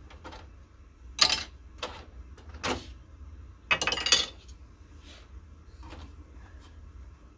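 Hard plastic parts of an office laser printer knocking and clattering as they are handled and worked loose: several separate knocks, the loudest a bit over a second in, and a clattering run about four seconds in.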